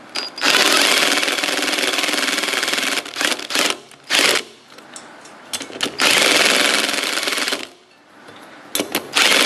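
A small impact gun (zip gun) hammers a 1/4-20 bolt with a copper sealing washer into the aluminium crankcase of a Tillotson 212 engine, the bolt self-threading into the old governor-shaft hole. It runs in bursts: a long one of nearly three seconds, a few short blips, another of under two seconds, and a brief one near the end.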